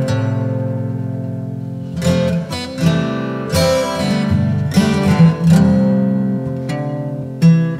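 Background music: acoustic guitar strumming slow chords, each ringing out and fading before the next stroke.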